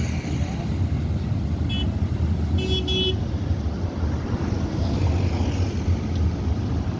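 Steady low rush of floodwater pouring over a river anicut, with a vehicle horn beeping in a few short toots about two to three seconds in.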